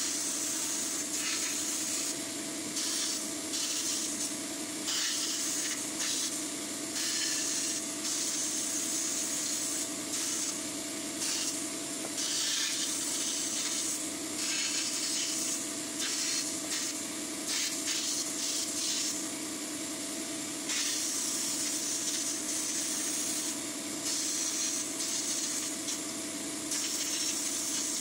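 Blast-cabinet sandblasting gun spraying abrasive at die-cast toy tractor parts: a loud hiss that swells and eases off every second or two, with a steady hum underneath.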